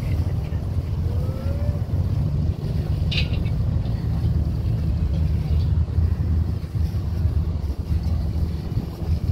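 Wind buffeting a phone's microphone: a heavy, uneven low rumble. A brief sharp, higher sound cuts through about three seconds in.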